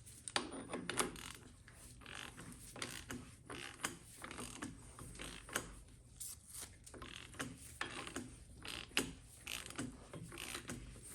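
A ratchet wrench clicking in short, uneven strokes as it turns the forcing screw of a crankshaft hub installer tool, pressing the hub onto an LT1 V8's crank snout; at this early stage the screw still turns easily.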